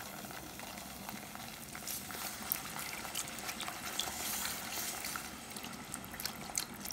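Wire whisk scraping and clicking through a sizzling butter-and-flour roux in a pot. Partway through, milk is poured in from a carton and whisked into the hot roux, adding a liquid pouring and bubbling sound.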